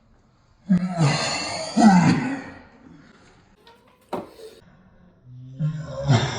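A man heaving and groaning loudly in pain from the burn of a Carolina Reaper pepper tincture: one long heave about a second in and another starting near the end. A sharp click falls between them.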